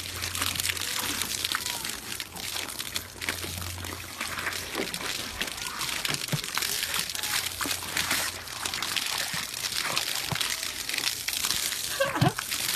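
Water splashing and sloshing steadily, a dense hiss full of small splashes and crackles.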